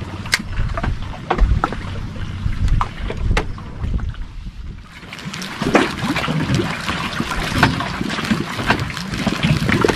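Wind buffeting the microphone, with scattered sharp clicks and knocks as fishing rods and spinning reels are handled on a wooden fishing raft. It dips briefly near the middle, then gets busier again.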